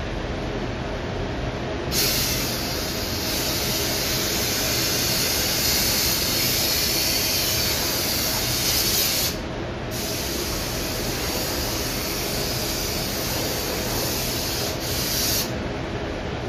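Compressed air hissing from an air gun in two long blasts, the first about seven seconds, the second about five and a half, blowing dust off the panel while it is tack-wiped before painting. A steady low rumble of the paint booth's ventilation runs underneath.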